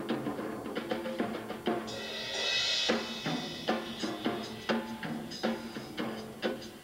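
Drum solo on a Ludwig drum kit with two bass drums: separate drum strokes, a cymbal crash that rings for about a second, then steady strokes about three a second.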